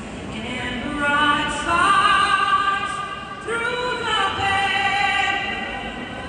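A solo singer performing the national anthem over the stadium's public-address system, in long held notes that step up in pitch partway through.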